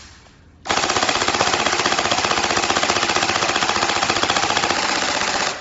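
Battery-powered Type 97-style bullpup gel ball blaster firing full-auto. Its gearbox cycles in a rapid, even rattle that starts suddenly about a second in, holds steady for about five seconds, and cuts off just before the end.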